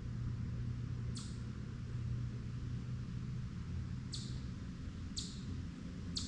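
A bird giving four short, high chips that drop in pitch, one about a second in and three more about a second apart near the end, over a steady low hum.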